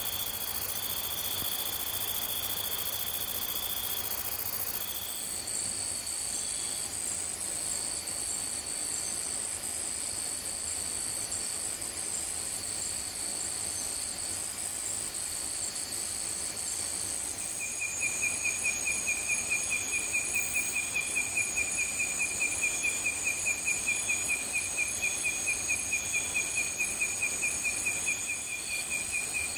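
Insect chorus: a high steady chirring with short repeated calls. Past the middle, a louder pulsing trill joins in at about three pulses a second.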